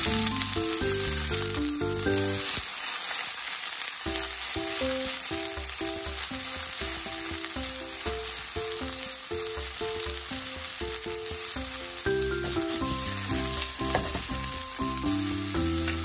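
Bean sprouts sizzling in hot oil in a nonstick frying pan as they are tossed and stirred with chopsticks, a steady hiss of frying. Background music with a simple melody of short notes plays alongside.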